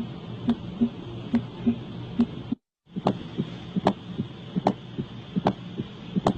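Recorded heart sounds, a repeating lub-dub beat over a steady hiss. The recording cuts out briefly about two and a half seconds in and resumes with a busier pattern of sharper clicks.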